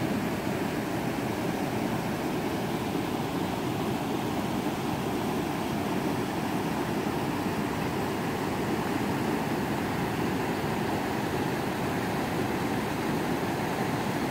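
Whitewater of a small waterfall and the rapids below it, rushing steadily over rocks.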